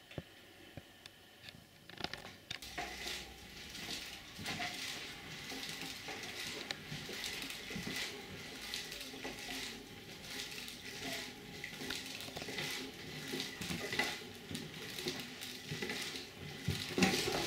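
Home-made plastic automaton running, its plastic bottles, forks, spoons and caps rattling and clicking against each other. The clatter starts about two seconds in and grows busier and louder near the end.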